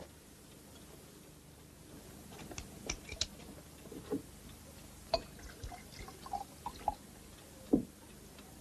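A glass bottle being opened with a few sharp clicks at the neck, then liquid poured from it into glasses with small drips and glass clinks. A brief louder sound near the end.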